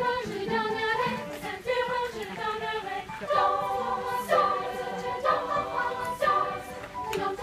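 Girls' choir singing, the sound growing fuller and louder about three seconds in.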